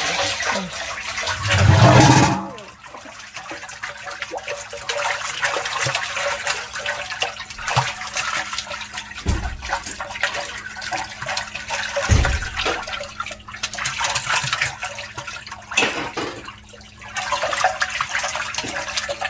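Water bubbling and sloshing in an open cast-iron cauldron of freshwater eels over a wood fire, with small crackles throughout. There is a louder surge about two seconds in and a couple of dull thumps later on.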